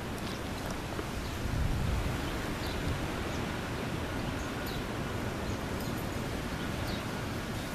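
Steady outdoor background noise with a low rumble of wind on the microphone and a few faint, short high chirps. No clear dog sounds stand out.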